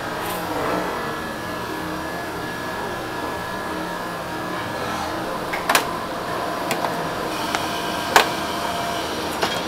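Steady whirring machine noise in a shop kitchen, with a few sharp clinks from about halfway through as raw ba wan on small saucers are set onto a perforated stainless-steel steamer tray.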